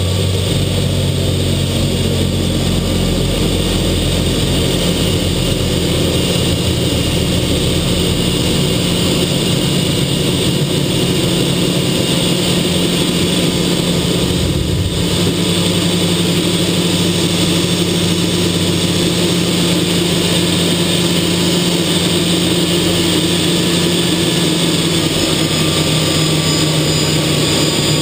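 TA-4J Skyhawk's Pratt & Whitney J52 turbojet running at high power through takeoff and climb-out, heard from inside the cockpit as a loud, steady drone and whine. A deep rumble underneath drops away about halfway through.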